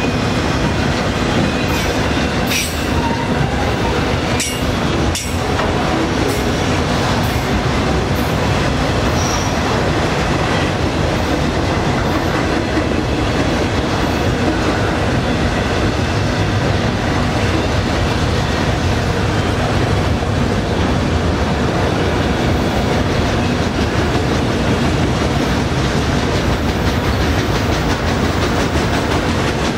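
Autorack freight cars rolling past: a steady rumble of steel wheels on rail, with a few sharp clicks about two to five seconds in.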